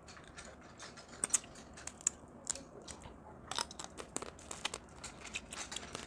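A person chewing food close to the microphone, with scattered wet clicks and small crunches of eating about every half second.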